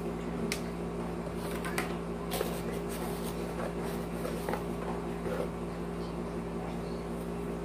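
A steady low hum, as of a fan or appliance, with light clicks and rustles from a plastic night-light base and its packaging being handled; the clicks come in the first few seconds.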